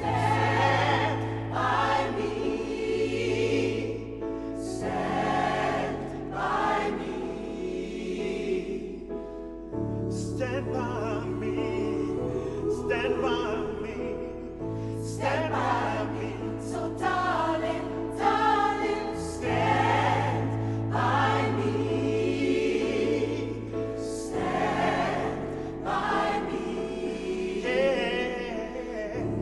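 Gospel choir singing, with held low notes sounding underneath the voices.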